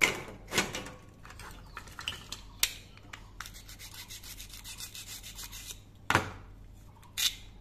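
The hook-and-loop fastener holding a plastic toy pear together tears apart as a toy knife cuts the pear in two. It makes a fine crackling rasp for about two seconds in the middle. Around it come several sharp clacks of hard plastic toy fruit pieces being handled and set down, one at the start, another half a second later, and two near the end.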